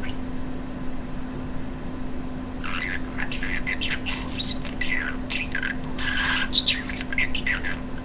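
Pet budgerigar chattering in a fast run of squeaky warbles and chirps, its imitation of talking, starting about two and a half seconds in, over a steady low hum.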